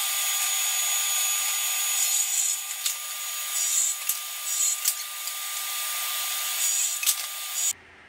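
Power saw running and cutting plywood strips to length: a loud, steady whine with a few sharp clicks and small dips in level as the blade goes through the wood, cutting off suddenly near the end.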